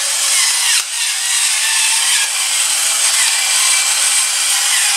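Pepper mill grinding black pepper, a continuous grinding rasp with a brief break just under a second in.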